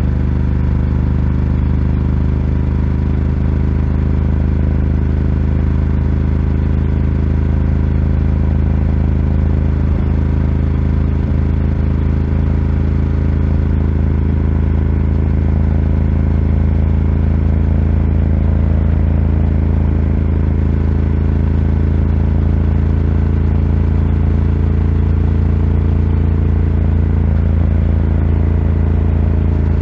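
Ducati Scrambler 1100's air-cooled L-twin running through a Termignoni exhaust, held at a steady cruising speed with no revving or gear changes.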